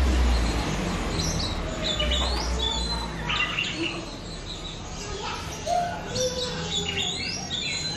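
Young oriental magpie-robin (kacer) singing unevenly: scattered chirps and quick rising whistles with gaps between them, the varied, unpolished song of an untrained bird still learning its song. A low rumble sits under the first second.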